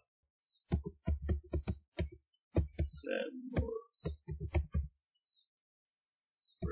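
Computer keyboard keystrokes: quick runs of typing taps with dull thumps, several a second, stopping about five seconds in. A short hum comes about three seconds in.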